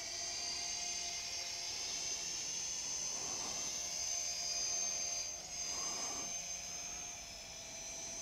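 Small toy quadcopter (DWI X35) flying, its motors and propellers making a steady high-pitched buzzing whine over a lower hum; the pitch dips briefly about five and a half seconds in as the motor speed changes.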